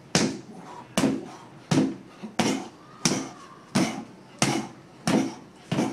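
Rapid series of hand strikes landing on a freestanding rubber-torso training dummy: about nine sharp slaps, roughly three every two seconds.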